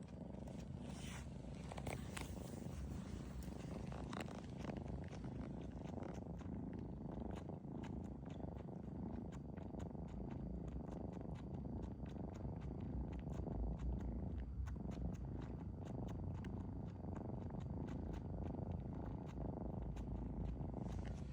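A sleeping pet snoring steadily in a low tone, with many small clicks from its mouth working at the carpet as it chews in its sleep.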